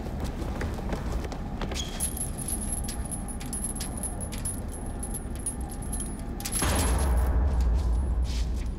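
Metallic clinking and rattling, with a low rumble that swells in about two-thirds of the way through.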